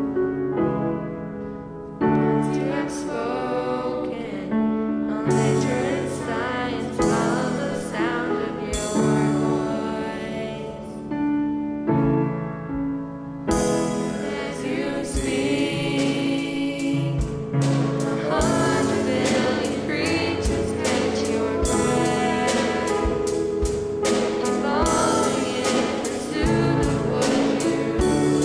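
Live worship song: young female voices singing with grand piano and electric keyboard. Drums and cymbals come in about halfway through.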